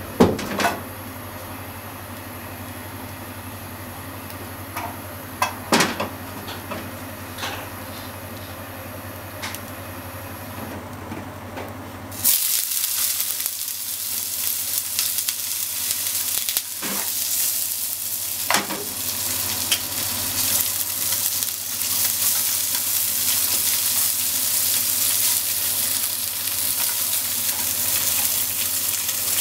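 Sliced wiener sausages sizzling in hot oil in a nonstick frying pan: the sizzle starts suddenly about twelve seconds in, as they go into the pan, and carries on steadily. Wooden chopsticks knock against the pan a few times. Before the sizzle there is only a low steady hum with a few clicks and knocks.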